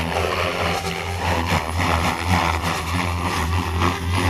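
OMPHobby M4 electric RC helicopter in flight: the steady buzz of its spinning rotor blades and motor, swelling and easing a little as it manoeuvres.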